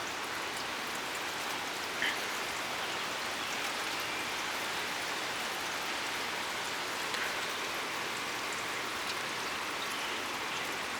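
Steady rain falling, an even hiss with a faint drop tick now and then.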